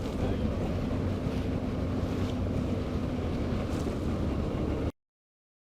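Steady low rumble of wind-like noise with a faint hum, cutting off abruptly to dead silence about five seconds in.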